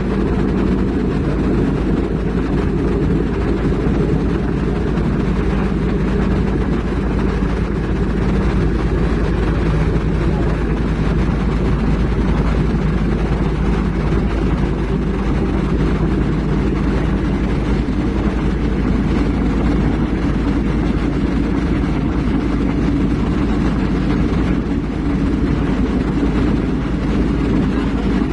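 Heavy diesel engine running steadily with a deep, even rumble; its note shifts a little higher about twenty seconds in.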